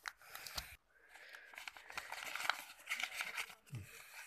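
Paper envelope rustling and crinkling as it is opened by hand and a bundle of banknotes is drawn out, with many small sharp crackles of paper.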